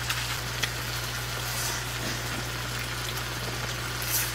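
Pork belly and minari sizzling on a round griddle pan: a steady crackling hiss with a few sharp pops, one about half a second in and one near the end.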